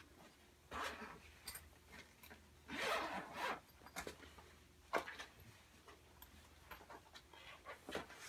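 Backpack zipper being pulled open in several short strokes, the longest and loudest about three seconds in.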